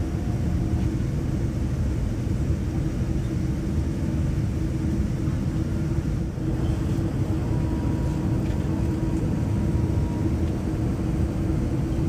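Cabin noise inside a Boeing 787-9 airliner taxiing after landing: a steady low rumble with an even hum.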